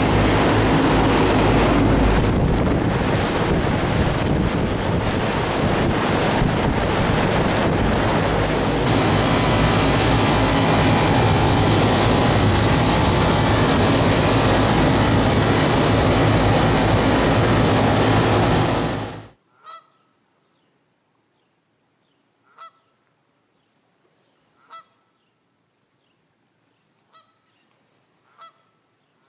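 Loud steady rushing noise with a low hum underneath, which cuts off abruptly about two-thirds of the way through. After it come faint honks of geese, one every two to three seconds.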